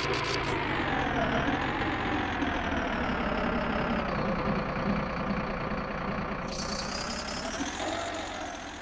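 Truck engine sound running steadily, its pitch wavering slowly down and back up, fading out near the end.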